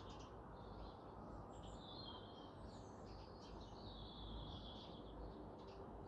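Small birds chirping, with a few longer whistled notes, over a faint steady background rumble.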